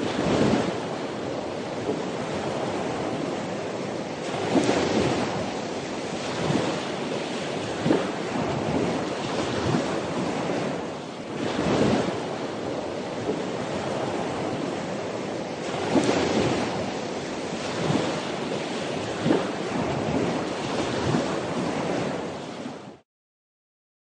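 Sea surf: a steady wash of waves that swells every few seconds, cutting off suddenly near the end.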